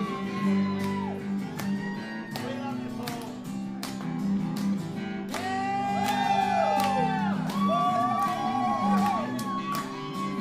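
Live acoustic guitars strummed in a steady rhythm, with high voices gliding up and down over them in the second half.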